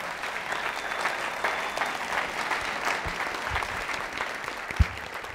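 Audience applauding, many hands clapping together. A few dull low thumps sound in the second half, the loudest near the end.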